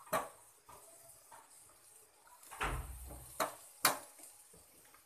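A steel spoon knocking and clinking against a stainless steel pot as sliced onions are stirred in water: a handful of sharp knocks, the loudest in the middle, one with a brief low thud.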